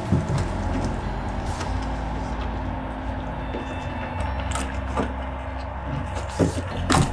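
Steady low hum with a few scattered knocks and clicks, the loudest two near the end: live sound of a washing machine being cleaned.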